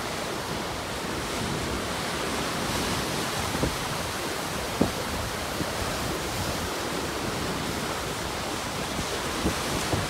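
Ocean surf breaking and churning over a rocky shore: a steady wash of white water. A couple of short, low thumps of wind on the microphone come about a third and halfway through.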